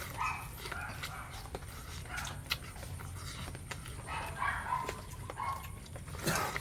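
Repeated short animal calls, about two a second, with scattered sharp knocks.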